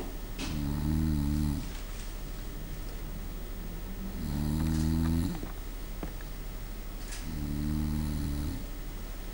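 A person snoring: three snores, each about a second long and roughly three seconds apart, over a steady low hum.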